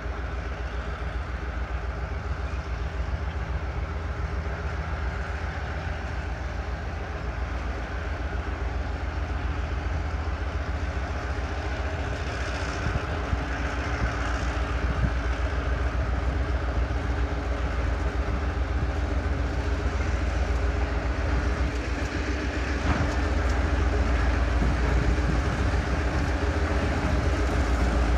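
EMD GP7 road-switcher's two-stroke V16 567 diesel engine running as the locomotive pulls a cut of boxcars, a steady low rumble that grows louder as it approaches.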